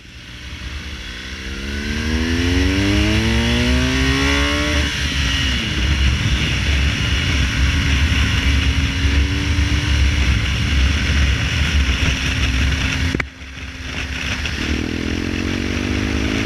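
BMW R1200GS liquid-cooled boxer twin with an Akrapovič exhaust accelerating under way: its note rises in pitch over the first few seconds, then holds steady while cruising, with heavy wind rumble on the microphone. The sound drops off suddenly about thirteen seconds in, and the engine note climbs again near the end.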